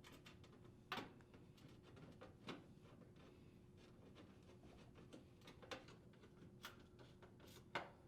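Faint, scattered clicks and ticks, about five of them a second or more apart, of a Phillips screwdriver threading screws into the front of a range's metal top panel.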